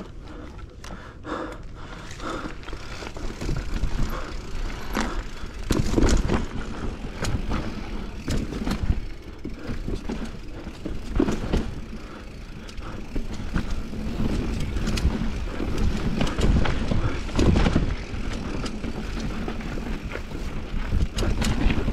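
Mountain bike riding fast down a dirt singletrack: tyres rolling and crunching over dirt and roots, with frequent sharp knocks and rattles from the bike over bumps. It gets louder a couple of seconds in as the ride picks up.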